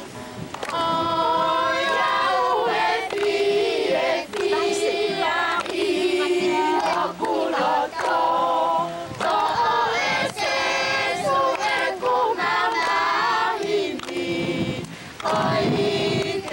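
A children's choir singing together, phrases of held notes with short breaks between them.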